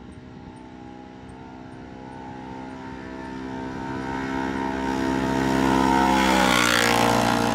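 Two Polaris Ranger side-by-sides driving at a steady speed, one stock and one fitted with a Speedwerx Exterminator clutch, exhaust and tune kit. Their engines' even drone grows louder as they approach, then drops in pitch as they pass about six and a half seconds in, with a rising rush of tyre and wind noise.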